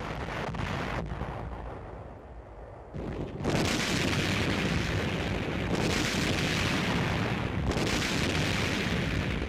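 Artillery shells bursting in a heavy barrage. A sudden blast opens it and dies away, and from about three and a half seconds in a louder, continuous rumble of explosions carries on.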